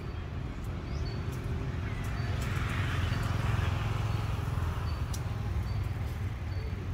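Outdoor background: a steady low rumble that swells a little in the middle, with faint short high chirps and ticks now and then.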